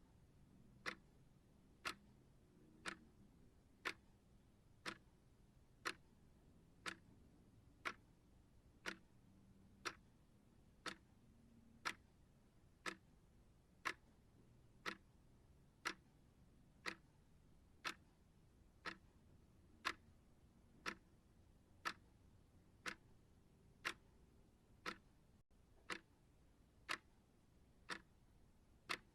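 Clock-style ticking, one short sharp tick a second at a steady even pace.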